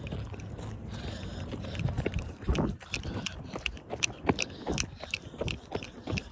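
Footsteps crunching on rough ground, an irregular walking pace of about two steps a second.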